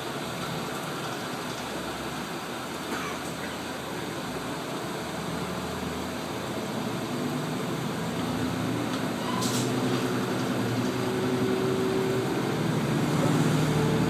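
KiHa 47 diesel railcar pulling away from a station, heard from inside the car: the diesel engine's steady hum builds and grows louder from about the middle as the train gathers speed, with one short sharp click a little past the middle.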